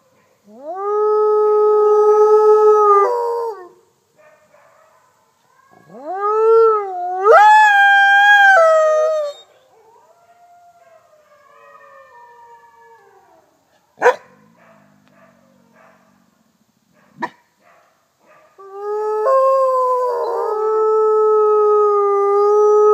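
Mexican gray wolf howling: three long howls, each rising into a steady held note and falling away at the end, the second wavering and stepping up in pitch. Fainter howls from other wolves come between them, and two sharp clicks fall in the quiet gap.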